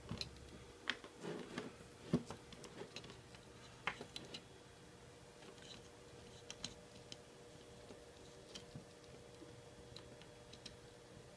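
Faint scattered clicks and taps of a USB plug and its cable being handled and pushed into a BeagleBone Black's USB host port. A few clicks come in the first couple of seconds and one near the four-second mark, then only sparse faint ticks over a low steady hum.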